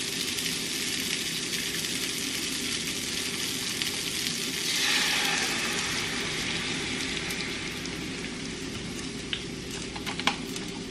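Broccoli sizzling in a hot skillet, a steady frying hiss that swells louder for a couple of seconds as heavy whipping cream is poured into the pan. A few light clicks near the end.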